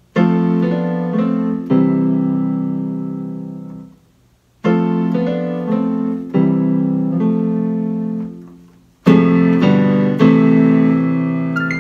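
Electronic keyboard on a piano voice playing three slow phrases. Each opens with a few quick chord changes and settles into a held chord that fades away, and the first two die out almost to silence before the next begins.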